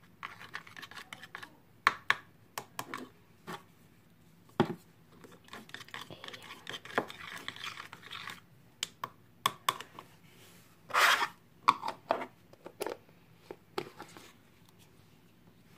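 Scraping, rubbing and clicking of a utensil and hands working a mix of soap and salt into slime in a container. The handling noises come irregularly, with a louder noisy burst lasting about a second, about eleven seconds in.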